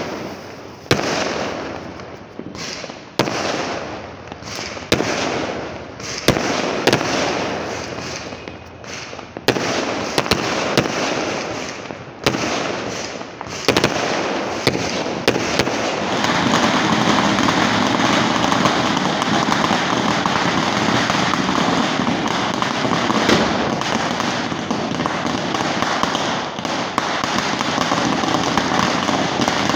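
Fireworks going off: a run of sharp bangs about once a second, each trailing off in crackle, from aerial shells bursting; about halfway through this gives way to a long, unbroken stretch of rapid crackling from firecrackers burning on the ground.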